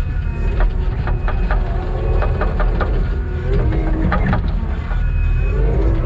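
Kubota SVL90-2 track skid loader's diesel engine running steadily while it spreads topsoil, with many sharp clicks and some thin squealing tones over the steady engine sound.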